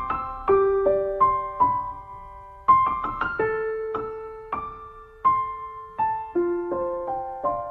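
Solo piano playing a slow, soft melody of single notes and chords, each note struck and left to fade, about two notes a second: the instrumental piano outro of the ballad after the singing has ended.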